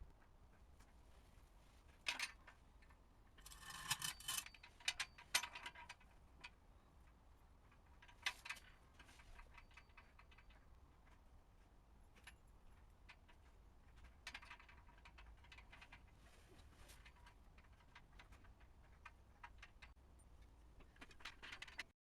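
Scattered faint metallic clicks and clinks of hand tools and loose metal parts being handled during exhaust removal, in several short clusters with near silence between.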